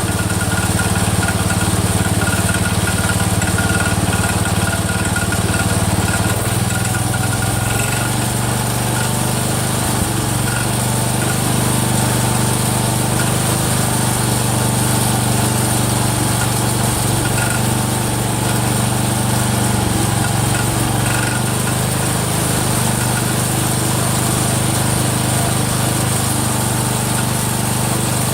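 Rebuilt single-cylinder Kohler engine of a Cub Cadet 102 garden tractor running steadily, with a slight change in engine speed about six seconds in.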